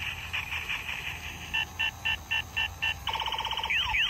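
Electronic toy gear gun playing its sound effects: a run of high beeps about four a second, a rapid buzzing burst about three seconds in, then quick zaps falling in pitch near the end.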